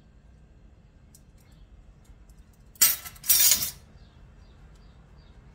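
A metal kitchen utensil clattering against a ceramic mixing bowl, about three seconds in: a sharp clank, then a longer rattle about half a second later.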